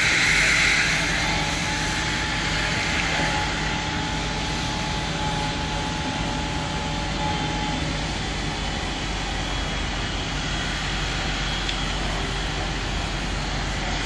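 Compressed air foam (CAFS) hose nozzle hissing as it sprays foam, loudest in the first second, over a steady engine drone from the pumping fire truck.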